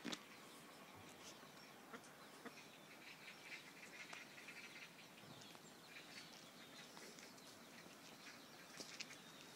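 Near silence: a faint outdoor background with a few soft clicks and faint bird sounds from free-ranging chickens.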